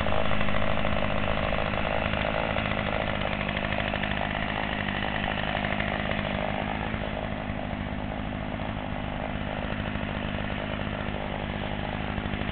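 Chainsaw running steadily.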